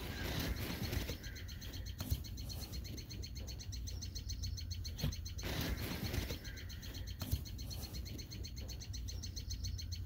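A rapid, even chirping trill, many pulses a second, in two long runs with a short break about five seconds in. Low wind rumble and a few light knocks sit underneath.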